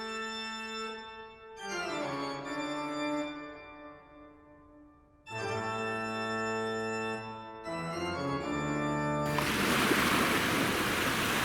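Slow music of sustained chords, changing every couple of seconds. About nine seconds in, it gives way to the steady rush of sea surf and wind.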